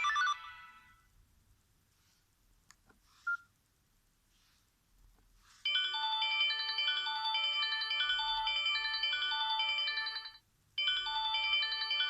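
Sony Ericsson S312 ringtones playing through a Samsung GT-B3210 phone's speaker. The last one dies away right at the start. After a pause with a short beep, a new electronic polyphonic ringtone melody starts about halfway through, stops briefly and starts over from the top near the end.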